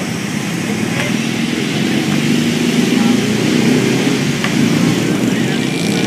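A motor vehicle engine running close by, a steady low drone that swells around the middle and eases off again, like a vehicle passing on the street.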